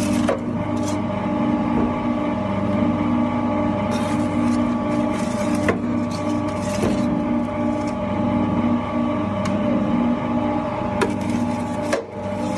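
A machine running with a steady hum of several even tones, with scattered short clicks and crackles over it.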